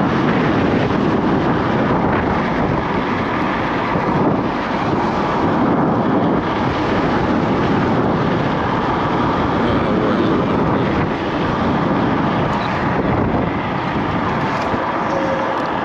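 Steady rush of wind on the camera microphone mixed with road noise while riding an electric scooter.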